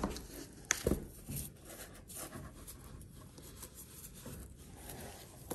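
Cotton-gloved hands handling a cardboard packaging folder, making faint rustling and scraping. A few short, sharper crinkles come in the first couple of seconds as a print is worked out of the card.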